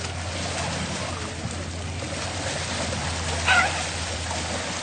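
Steady rush of river water, with one brief, sharp high-pitched call about three and a half seconds in.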